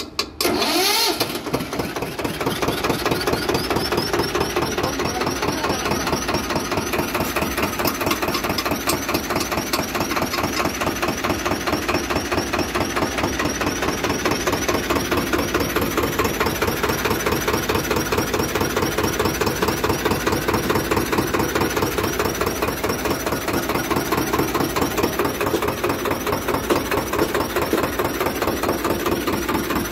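Swaraj 724 XM tractor's two-cylinder diesel engine, fitted with a turbocharger, catching about a second in and then idling steadily with an even, rapid beat. A faint high whine rises over the first few seconds as the turbo spools up.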